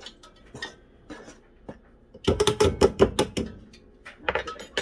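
Kitchen utensils clattering against a bowl and other kitchenware: a few light clicks, then a rapid run of sharp clinking knocks a little after two seconds in, lasting about a second, with a few more knocks near the end.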